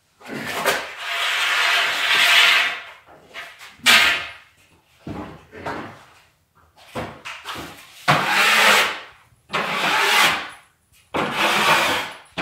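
About ten rough scraping strokes on a hard surface, worked by hand in an uneven rhythm; the longest, about two seconds, comes near the start, and the rest are shorter.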